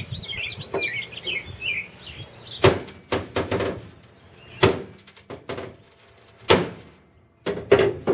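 Hammer blows on a mini airboat hull, pounding out dents: a series of irregular sharp knocks, the heaviest about every two seconds. Birds chirp in the first two seconds.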